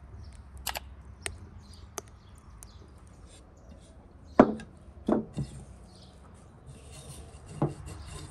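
A hand mixing and pressing flour into soft dough in an enamel bowl: soft rubbing and squelching with a few dull thumps, the loudest about four and five seconds in. A few sharp ticks come in the first two seconds.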